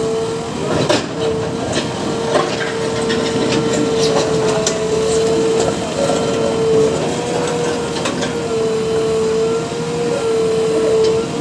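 JCB excavator running with a steady whine while its bucket works through a soil-and-stone mixture, stones crunching and clacking in irregular knocks.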